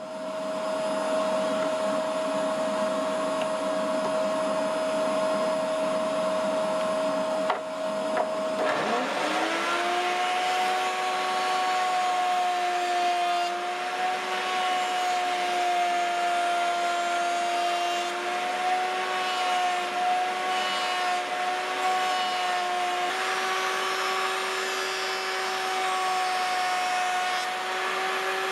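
Woodworking machinery with dust extraction: a steady motor whine, then about eight seconds in a click and a table-mounted router spinning up, its whine rising to speed. It then runs steadily with small wavers in pitch while the edge of a cherry barrel stave is milled against a template.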